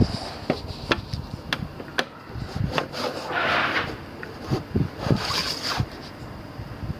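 Handling noises at a workbench: a string of light clicks and taps, with a short rustle about three and a half seconds in.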